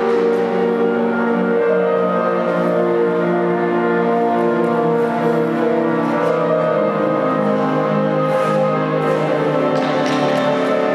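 Orchestral music for a figure skating free skate program, with long held notes from strings.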